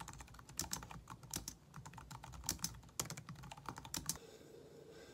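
Typing on a small round-keyed keyboard: quick, irregular key clicks that stop about four seconds in.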